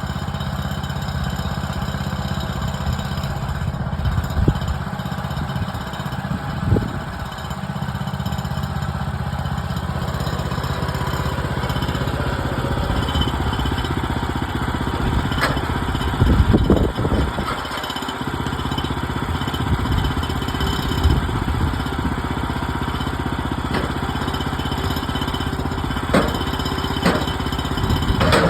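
Woodland Mills HM130 Max bandsaw mill's gas engine running steadily, with occasional sharp knocks and clatters over it.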